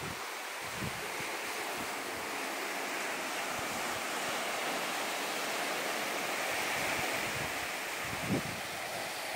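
Sea surf washing on the beach, a steady hiss that swells for a few seconds past the middle, with a couple of low wind bumps on the microphone.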